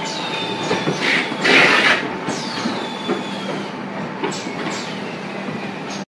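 Automatic carton packing line running: steady machine hum and conveyor clatter with several falling squeals, a few sharp clacks and a loud rushing burst about a second and a half in.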